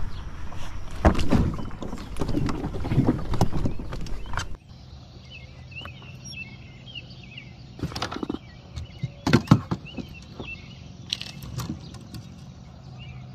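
Knocks and rumble of handling on the microphone, then, after an abrupt change about four and a half seconds in, short high chirps over a low steady hum, broken by a few sharp clicks.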